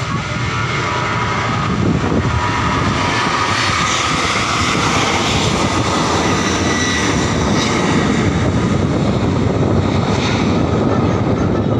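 Jet engines of a narrow-body twin-jet airliner rolling along the runway: a loud, steady rush of engine noise with a faint whine in it, building slightly over the first two seconds.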